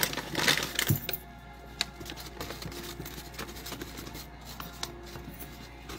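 Plastic pouch crinkling and rustling as its contents are shaken into a blender jar, loudest in the first second, then scattered small crackles.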